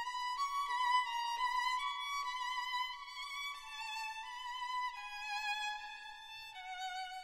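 Background music: a violin playing a slow melody with vibrato, each note held about half a second, the line drifting lower toward the end.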